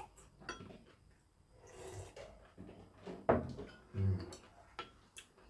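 Someone eating at a table: scattered light clinks and taps of utensils against ceramic bowls and plates, with a few short low mouth sounds while chewing.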